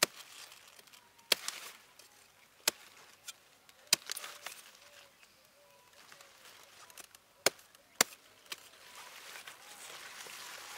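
Sharp snaps and cracks of broccoli stalks and leaves being handled and broken off the plant, about six over ten seconds, with rustling of leaves building near the end.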